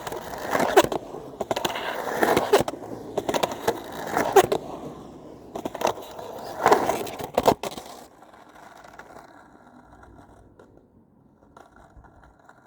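Skateboard riding: wheels rolling and scraping with repeated sharp clacks and impacts of the board for about eight seconds, then only quiet rolling.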